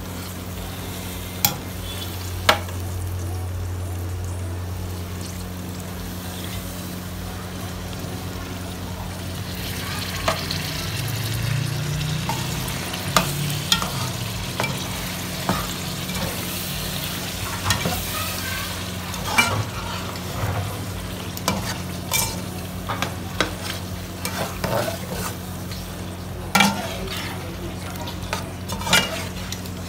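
Steel spoon stirring chicken-and-potato masala in a metal pot, with sharp clicks and scrapes of the spoon against the pot, while the masala sizzles in the pan, the sizzle growing louder about a third of the way in. A steady low hum runs underneath.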